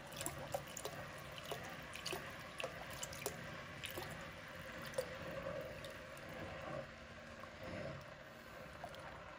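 Thin stream of wheat milk pouring into hot sugar syrup in an enamelled cast-iron Le Creuset pot while a wooden spoon stirs it: faint liquid trickling and splashing, with small scattered ticks.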